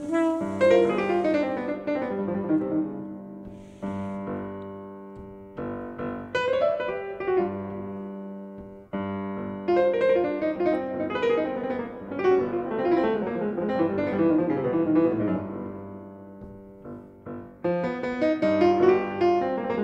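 Unaccompanied grand piano playing a jazz solo: fast runs and chords that ring and decay, in phrases with short breaks between them.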